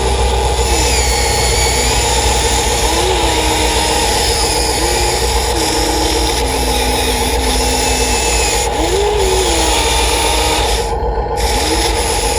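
Electric motors of a Huina 1593 radio-controlled model excavator running steadily. A motor whine rises and falls in pitch every second or two over a constant hum and rasping noise as it works.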